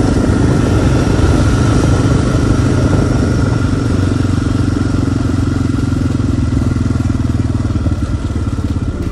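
ATV engine running steadily at a cruising pace, heard from the rider's own seat.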